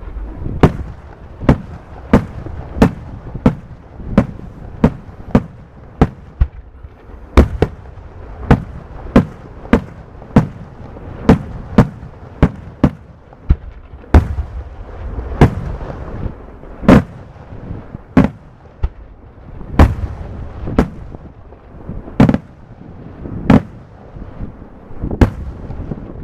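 Fireworks display: aerial shells bursting in steady succession, a sharp bang roughly every half-second to second, with a low rumble and echo between the reports.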